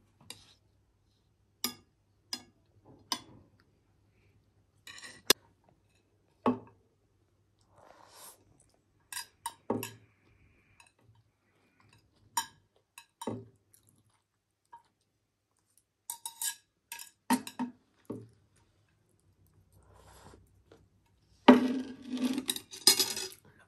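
Metal chopsticks clicking and scraping against a ceramic plate at irregular intervals while noodles are picked up and eaten. Near the end there is a louder scraping and clattering as the plate is pushed across the table.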